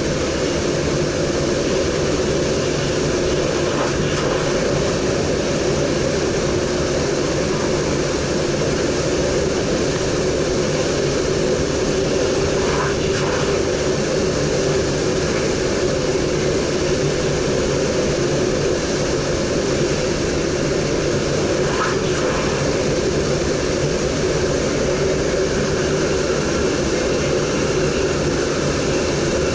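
NS DDZ double-deck electric train running at speed, heard from the driver's cab: a steady, even running rumble of wheels on rail and traction noise, with a few faint brief sounds over it.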